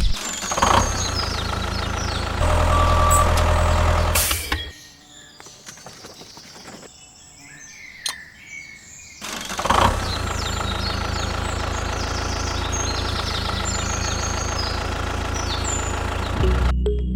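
A motor running steadily, dropping away for about four seconds partway through and then running again. Birds chirp over it.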